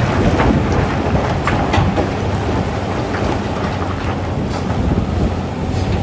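Caterpillar wheel loader's diesel engine running steadily under load while a bucket of broken rock is tipped into a steel dump-truck bed; the rocks rattle and rumble into the bed in the first couple of seconds, then the engine carries on alone as the loader pulls back.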